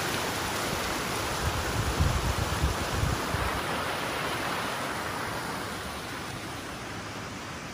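Alpine mountain river, its water rushing in a steady hiss, with a few low rumbles about two to three seconds in. The rushing fades a little toward the end.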